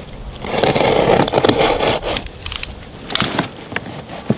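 Snap-off utility knife scraping along packing tape on a cardboard box, then tape and cardboard crackling with several sharp clicks as the box is worked open.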